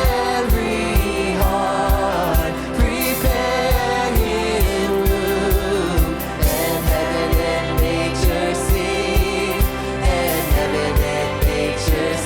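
Live contemporary worship band and singers performing, with a steady kick drum at about two beats a second under the sung melody.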